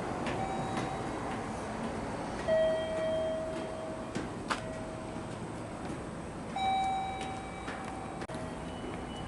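Railway sounds: a steady running rumble with several sustained high tones, each about a second long, and a few sharp clicks.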